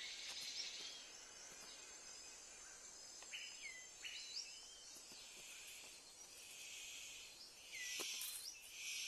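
Faint New Guinea rainforest ambience: a steady high insect hum, scattered short whistled bird notes that hook sharply in pitch, and a run of short hissing rasps in the last few seconds.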